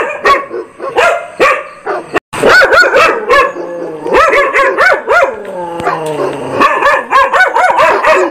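Dogs barking loudly, short sharp barks coming in quick succession and overlapping one another. A brief dead-silent gap just after two seconds in sounds like an edit cut.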